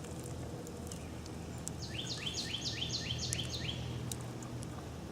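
A songbird singing a quick run of about eight repeated two-part notes, each sliding from high to lower, for about two seconds in the middle, over a steady low outdoor rumble.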